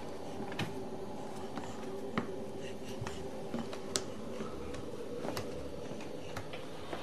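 Baby crawling on a hardwood floor: scattered light taps and slaps of hands and knees at irregular intervals, over a steady hum.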